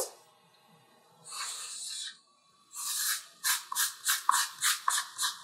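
Felt-tip marker scratching across flip-chart paper: one longer stroke about a second in, then a quick run of short rasping strokes, about three a second, as lashes are drawn in.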